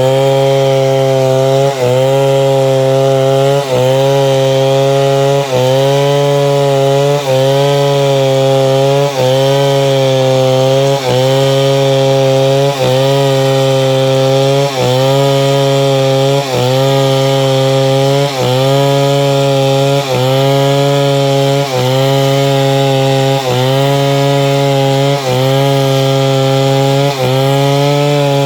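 Chainsaw running at high speed under load, ripping timber lengthwise into planks. Its engine note dips briefly and recovers about every two seconds.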